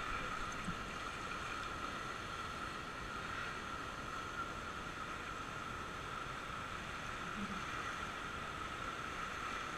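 River rapids rushing steadily around a whitewater raft, an even wash of water noise with a steady high hum over it.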